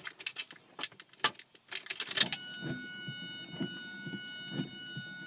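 Car keys jangling and clicking as a key is put into the ignition and turned. About two seconds in, a steady high electronic whine starts, with a soft pulse about once a second, as the car's electrics come on.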